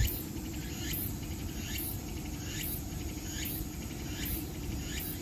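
An insect calling in a steady rhythm, a short high call about once a second, over a steady low background noise.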